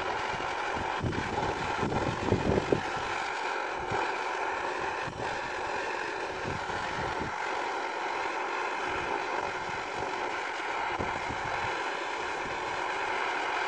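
Butane cartridge blowtorch burning steadily with a continuous hissing roar while heating a cast-iron part, a few short low rumbles near the start.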